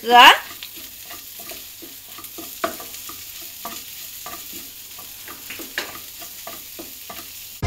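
Wooden spatula stirring and scraping mashed mutton brain around a nonstick frying pan in quick repeated strokes, over a steady sizzle of hot ghee.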